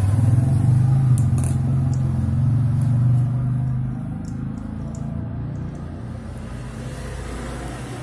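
A motor vehicle engine running close by, a low rumble that fades about halfway through, with a few faint light clicks over it.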